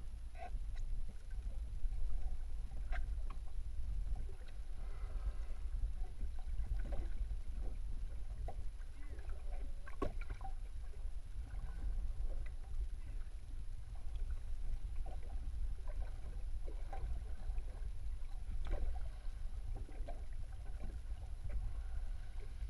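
Underwater sound heard through a camera in the sea: a steady low rumble of moving water, with scattered faint clicks and short squeaks and a sharper click about ten seconds in.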